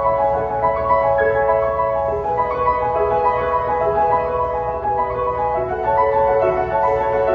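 Background music: a melodic piece of piano and mallet-percussion notes over a steady low pulse.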